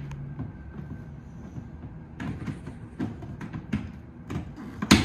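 Hollow plastic toy-truck body knocking and clicking as a part is worked into place: a run of sharp knocks from about two seconds in, with the loudest one at the very end.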